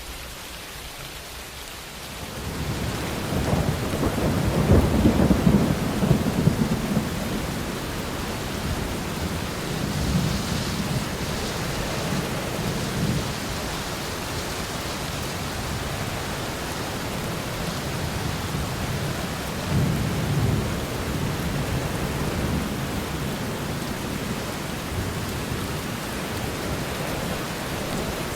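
Steady rain with rolling thunder. A deep rumble swells in about two seconds in and is loudest a few seconds later; softer rumbles return twice after it.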